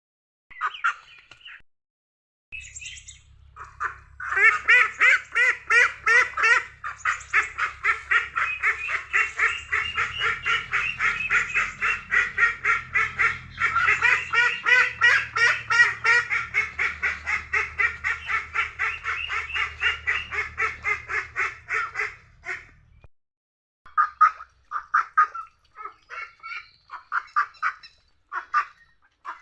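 Ducks quacking in a fast, continuous run of calls, about four or five a second, for most of the stretch. The calls stop briefly near the end, then scattered quacks resume.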